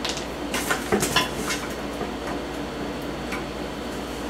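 Metal clinking as a screwdriver is picked up from among loose metal parts on a bench: a quick run of sharp clinks in the first second and a half, then a few faint ticks as the screwdriver is set to the lamp housing's screws.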